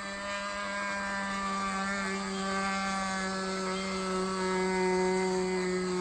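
Seagull Models Super Chipmunk RC plane's engine droning steadily in flight, its pitch wavering a little as the plane moves about and growing slightly louder late on.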